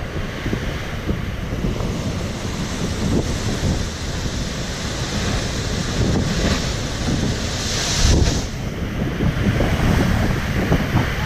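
Ocean waves crashing against the shore, with heavy wind buffeting the microphone. One louder wave breaks with a hiss of spray about eight seconds in.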